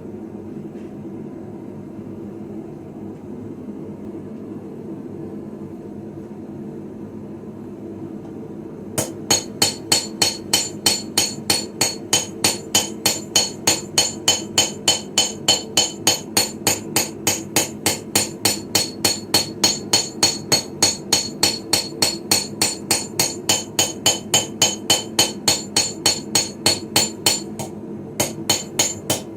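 Steel being hammered on a Viking-style anvil, a fast, even run of ringing blows at about three a second as the sickle blade is forged. The blows start about nine seconds in, over a steady low hum, and pause briefly near the end before starting again.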